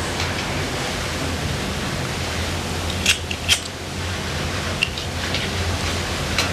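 Steady hiss and low hum of an old analog videotape recording, with two short clicks about three seconds in, half a second apart.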